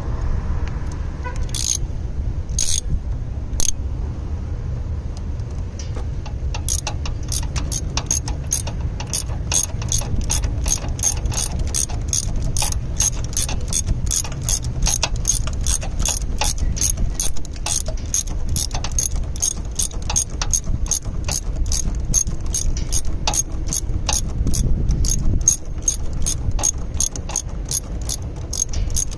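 Socket ratchet clicking as it turns the bolt of a car battery terminal clamp. A few separate clicks come first, then from about seven seconds in a steady run of about three clicks a second, over a steady low rumble.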